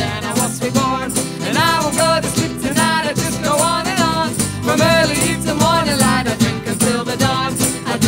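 Live band music: strummed acoustic guitar and keyboard with a voice singing.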